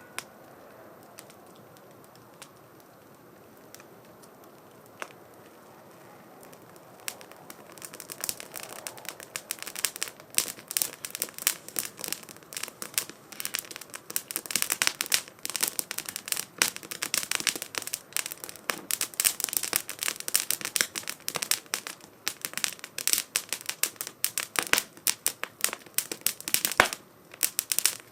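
Wood fire crackling in a 2×4 STOVE fire stand. A few scattered pops at first, then about eight seconds in the crackling builds into a dense, continuous run of sharp snaps and pops.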